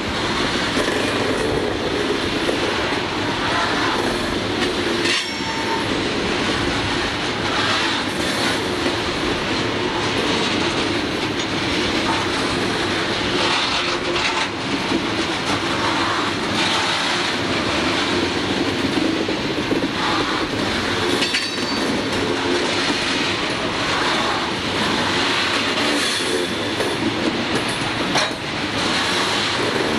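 CSX coal hopper cars rolling past close by: a steady rumble and clatter of steel wheels over the rail joints. A couple of brief high wheel squeals come from the curve, about five seconds in and again past the twenty-second mark.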